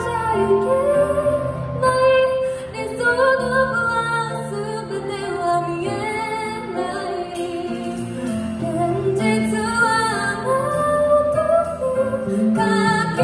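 A woman singing live into a microphone, accompanying herself on an acoustic guitar.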